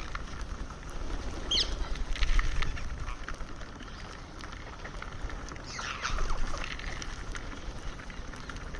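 Indian ringneck parakeet giving a few short, high calls, with a longer call falling in pitch about six seconds in, over a steady low rumble.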